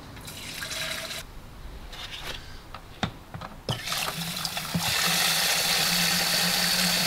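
Liquid chemical poured from a plastic jerry can into a hand pump sprayer for about a second, a few knocks and clicks of handling, then an outside tap running water into the sprayer's plastic tank: a steady rush with a low hum, starting about four seconds in.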